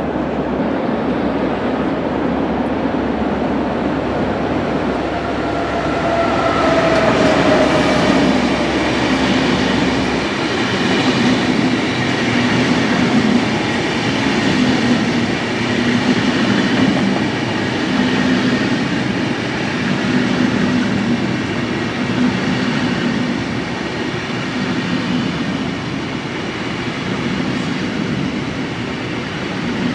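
Recorded sound of a real train running on rails: a steady rumble of wheels and cars, with a brief falling whine about seven seconds in.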